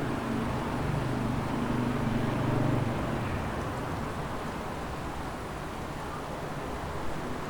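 Wind blowing through trees, a steady rushing, with a low hum under it that fades out about three seconds in.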